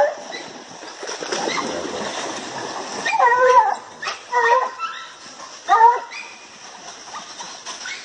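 Hunting hounds baying while chasing a paca: splashing water for the first few seconds, then three short bays a little over a second apart.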